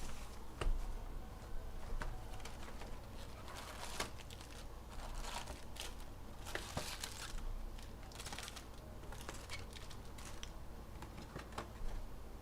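Plastic wrapping of a trading-card box and its packs crinkling and tearing as it is opened by hand, with scattered small clicks and taps, busiest in the middle.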